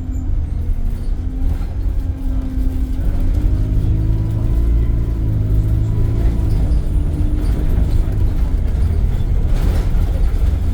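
Alexander Dennis Enviro 200 single-decker bus running: a deep rumble with a steady hum whose pitch rises slightly a few seconds in and settles again near the middle.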